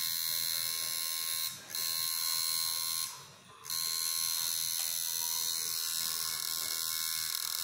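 Electric tattoo machine buzzing steadily as its needle works into skin. It cuts out briefly about a second and a half in, and again for about half a second around three seconds in.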